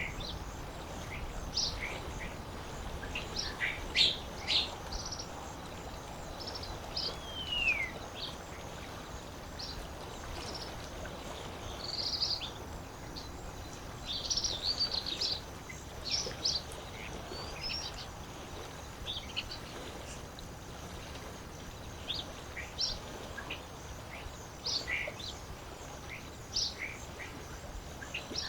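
Small birds chirping and calling in short scattered notes, with one longer call gliding downward about seven seconds in, over a steady low rush of lake water.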